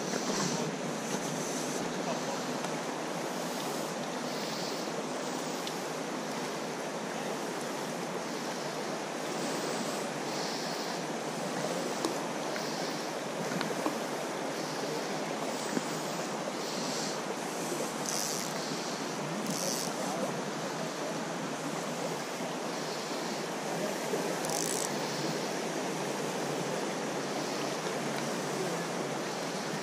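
Steady rush of a shallow river flowing and rippling around the wader's legs and over stones.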